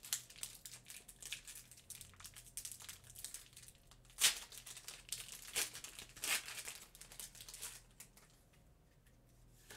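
Foil wrapper of a Pokémon booster pack crinkling in the hands as it is opened and the cards pulled out, in short irregular crackles with a few louder ones around the middle.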